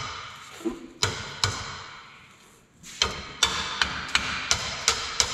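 Hammer striking a stuck steel brake dust shield on a 4x4 front axle's steering knuckle to knock it loose: two blows about a second in, a pause, then a steady run of about three blows a second, each with a short metallic ring.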